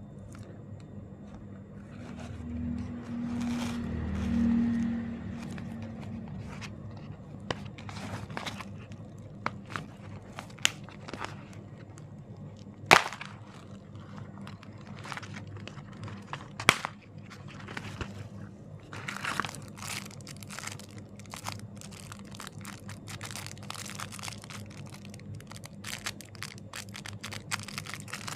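Kinder Joy egg packaging being handled and unwrapped: wrapper crinkling with scattered small plastic clicks and taps, and a couple of sharper clicks partway through.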